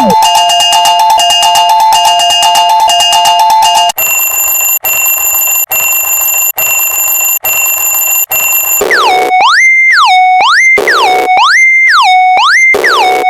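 Synthesized railroad-crossing alarm sounds in three parts. First a rapid two-tone electronic warble, then a steady high beep broken by short gaps about once a second, then a siren-like tone sweeping up and down about six times over the last four seconds.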